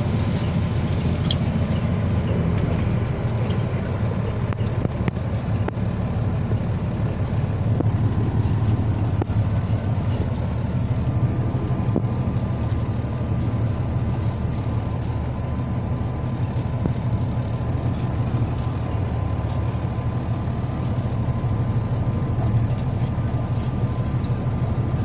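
Semi truck's Cummins ISX diesel engine and road noise heard from inside the cab: a steady low rumble, with a faint steady high tone joining about halfway through.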